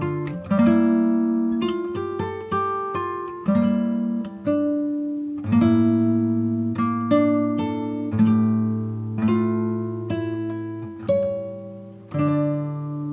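Acoustic guitar music: plucked chords struck about once a second, each left to ring out.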